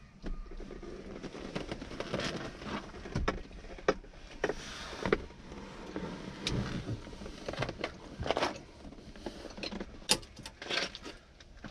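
Irregular knocks, clicks and rustling as a black leather car front seat is handled and lifted out through the door opening.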